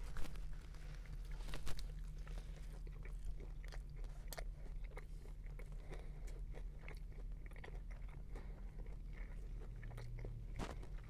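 Biting into and chewing a mouthful of crispy chicken sandwich: irregular crunching and small mouth clicks from the breaded chicken patty and bacon, with a few louder crunches scattered through.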